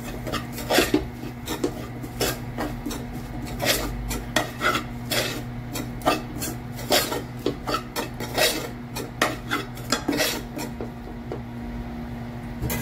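Steel spoon scraping and clinking against a stainless steel pan while stirring spice-coated diced vegetables, in irregular strokes a couple of times a second that stop about two seconds before the end.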